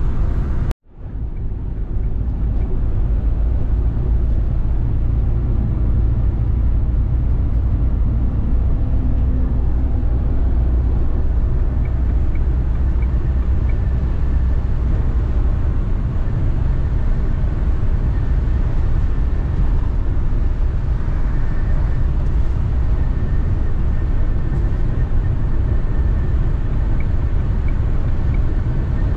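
Renault Master camper van driving on the road: steady low engine and road rumble, with a brief cut in the sound about a second in.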